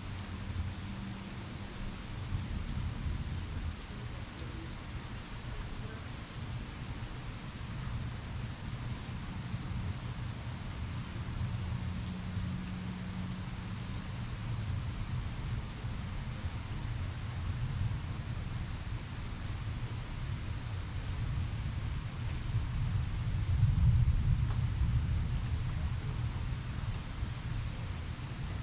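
Insects chirping in a steady, evenly pulsed rhythm, high-pitched, over an even hiss and a low rumble that swells briefly near the end.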